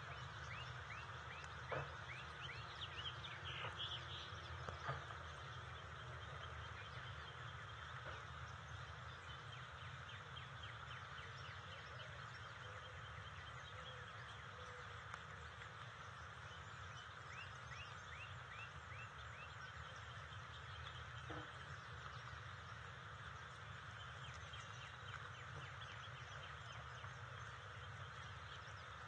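Outdoor ambience with a steady hiss and birds calling in the background, including rapid trills in the first few seconds and again about two-thirds of the way through.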